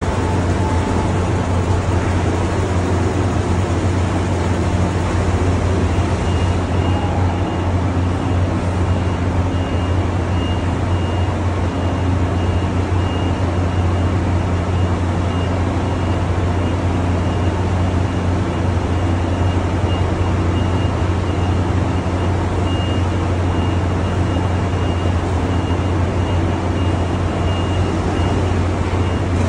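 Heavy construction machinery running steadily with a low, even engine hum. From about six seconds in, a high-pitched warning beep repeats over it.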